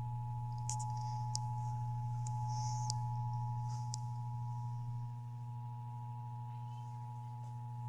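Emergency Alert System attention signal played over radio receivers: a steady dual tone of two pitches sounded together, held for about eight seconds, over a steady low hum. It marks the start of the monthly EAS test broadcast.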